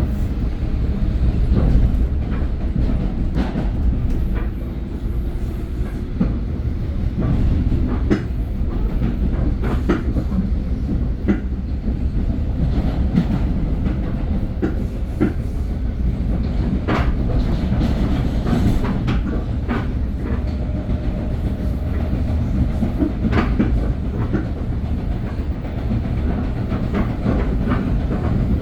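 Metro-North commuter train in motion: a steady low rumble with irregular sharp clicks of the wheels over rail joints.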